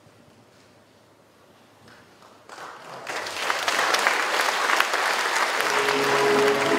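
Near silence, then about two and a half seconds in a hall audience breaks into applause that builds quickly and holds steady. Shortly before the end, sustained musical notes begin under the clapping.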